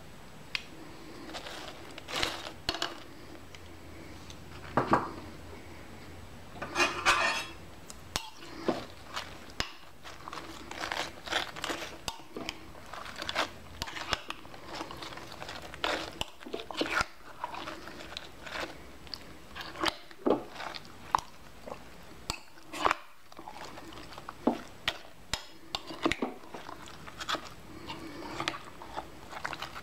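Irregular clinks, taps and scrapes of a utensil and food pieces against a slow cooker's crock as cubed chicken breast and sliced vegetables are added, with a short rattle about seven seconds in.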